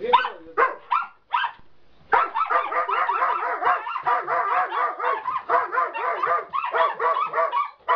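Large shaggy dogs barking excitedly: a few separate barks, then from about two seconds in a continuous rapid run of barks and yelps, several a second.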